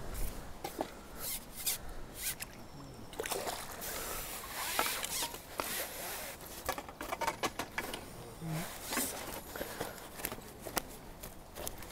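Fishing tackle being handled at the water's edge: a run of irregular clicks, scrapes and rustles, with a little splashing.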